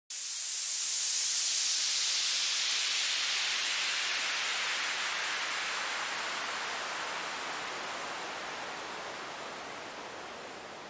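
Synthesized white-noise downlifter: band-pass filtered noise from a 3x Osc oscillator, its filter sweeping slowly down from a bright high hiss to a duller rush while the volume gradually fades.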